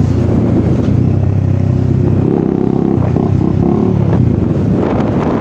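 Bajaj Dominar 400's single-cylinder engine running with its exhaust removed, a loud open exhaust note whose pitch shifts about two seconds in. Wind noise on the microphone builds near the end.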